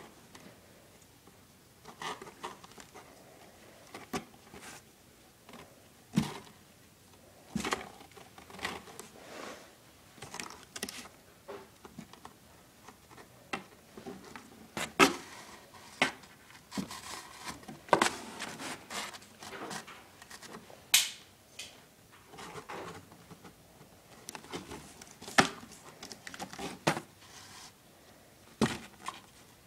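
A kitten's claws and paws scratching and knocking on a cardboard box: irregular taps and scrapes, a few of them sharp and loud.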